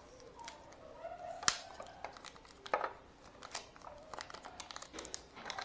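Handling noise from unpacking wired-neckband Bluetooth earphones from their box tray: scattered light clicks and crinkling rustles, with one sharp click about a second and a half in.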